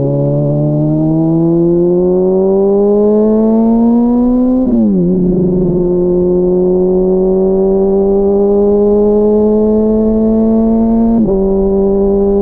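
Honda CBR600RR's inline-four engine accelerating, its pitch climbing steadily through a gear, dropping at an upshift about five seconds in, then climbing again before a second, smaller shift near the end.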